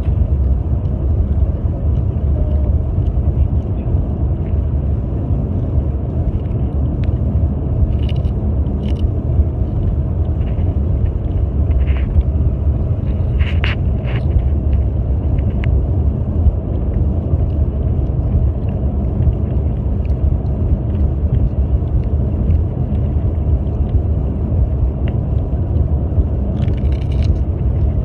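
Steady low rumble of road and engine noise inside a moving car's cabin, with a few short clicks and crackles now and then.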